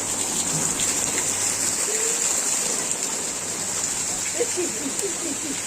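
Steady hiss of heavy cyclone rain falling.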